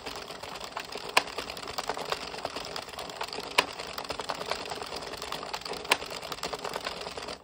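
Addi 22-needle circular knitting machine being cranked by hand, its needles clattering steadily as they cycle past the yarn feeder while knitting rows. A louder click comes about every two and a half seconds.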